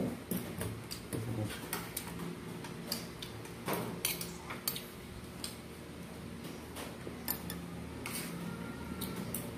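Spoon and fork clicking and scraping against a plate at irregular moments as someone eats, over a faint steady low hum.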